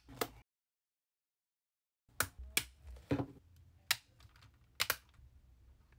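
Sharp plastic clicks and taps as a 3D-printed extension ring is fitted and snapped onto a headphone ear cup. There is one click near the start, then dead silence until about two seconds in, then a run of irregular clicks with five or so louder ones.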